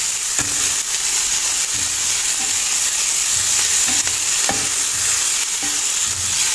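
Chopped vegetables sizzling steadily in a hot stainless-steel frying pan while a slotted spatula stirs and tosses them, scraping and tapping against the pan now and then.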